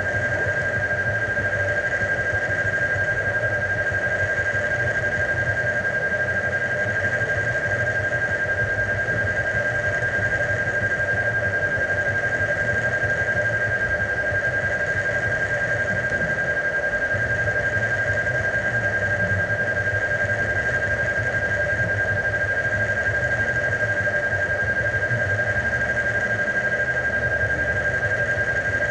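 A steady, unbroken high-pitched tone with a weaker lower tone and a low wavering hum beneath, at an even level throughout.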